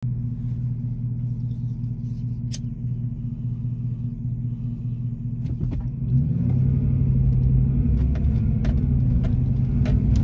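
Car running, heard from inside the cabin as a steady low rumble that grows louder about six seconds in, with a few sharp clicks over it.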